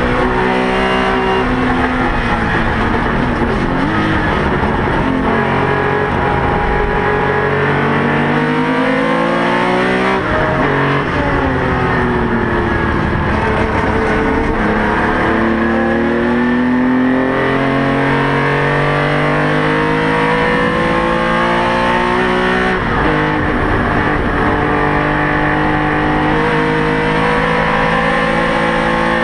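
Porsche 911 RSR's flat-six racing engine heard from inside the cockpit, revving hard through the gears, its pitch climbing with each gear and falling sharply on downshifts and braking into corners. The engine is one that its driver says was not running at full strength.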